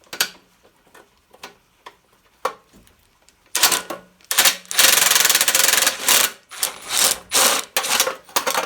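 Impact wrench hammering in several short bursts, the longest about a second and a half, running bolts out of an old Honda generator, after a few light clicks of the socket being fitted.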